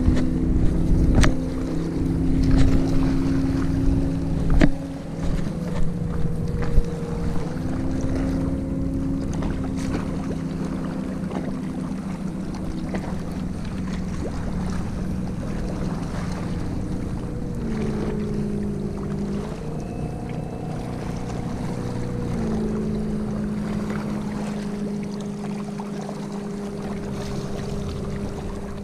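Motorboat engine droning steadily across the water, its pitch shifting up and down in steps several times. Wind buffets the microphone, with a few sharp knocks in the first seven seconds.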